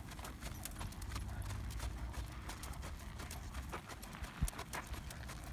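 Hoofbeats of a horse trotting on sand-and-dirt arena footing, a quick steady run of hoof strikes over a low rumble. One heavier thump comes about four and a half seconds in.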